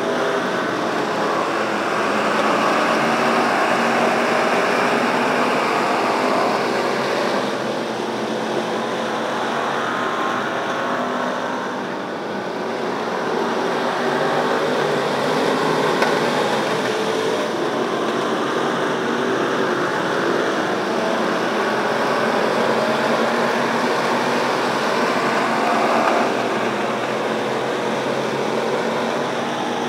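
A field of Pure Stock dirt-track race cars running laps together, a steady wash of engine noise that swells and fades as the pack passes and moves around the oval.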